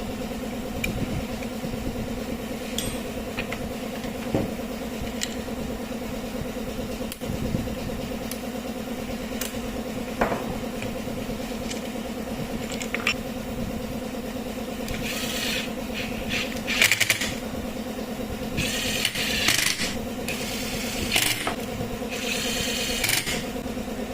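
A small motor running steadily with an even hum, with scattered clicks and, from about fifteen seconds in, bursts of scraping and rattling.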